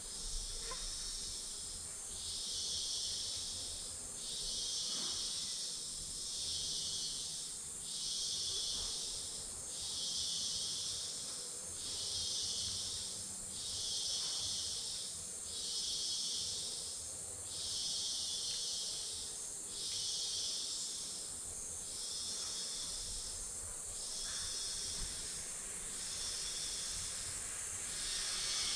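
Tropical forest insect chorus: a steady very high-pitched drone, with a lower hissing buzz that pulses on and off about every second and a half.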